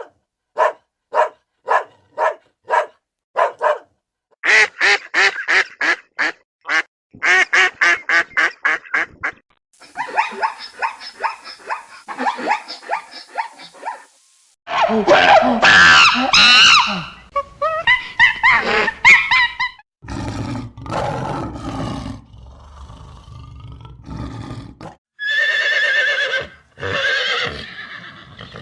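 A run of different animal calls, one kind after another every few seconds. It opens with short calls repeated about twice a second, then quick runs of pulsed calls, then louder drawn-out calls.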